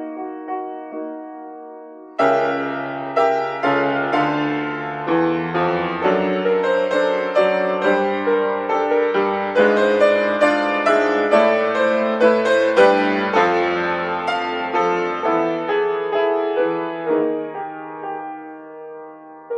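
Solo piano playing. A chord fades out over the first two seconds, then a loud entry with deep bass notes comes about two seconds in, followed by a dense run of struck notes and chords that thins out and grows softer near the end.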